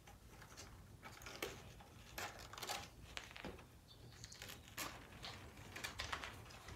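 Faint, irregular light clicks and taps of thin wooden flat-pack panels and pegs being handled and fitted together.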